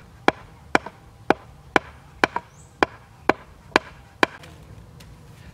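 Short-handled tool striking a wooden stake in steady blows, about two a second, ten sharp knocks in all that stop a little past four seconds in.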